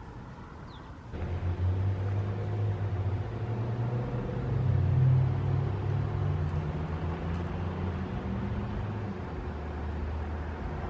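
A low engine or motor hum that starts abruptly about a second in and rises slightly in pitch through the middle before levelling off.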